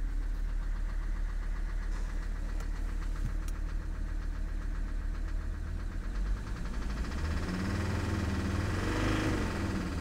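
Mercedes 300SD's OM617 five-cylinder turbodiesel running with a steady rhythmic knock from bad bearings, damaged by running a few hundred miles low on oil after an oil leak. Near the end the engine revs up and settles back down.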